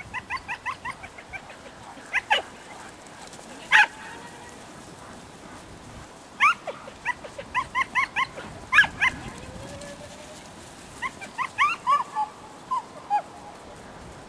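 Herding dog barking at sheep in short, high yips that come in quick runs of several at a time, with pauses of a second or more between runs.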